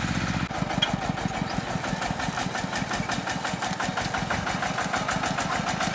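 Small farm tractor's Kubota KRT140 single-cylinder diesel engine running with a steady, rapid beat. The sound changes abruptly about half a second in.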